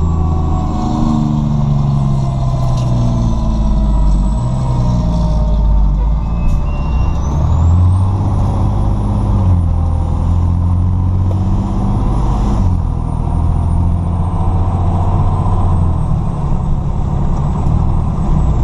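Fire truck on an emergency run, its diesel engine running under load while the mechanical Q siren rises and falls in pitch in slow swells every few seconds.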